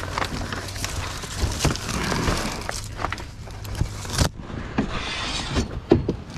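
Junk being shifted around in a dumpster: repeated knocks, clanks and rustling as items are moved and dropped. A steady low hum runs underneath and stops about four seconds in.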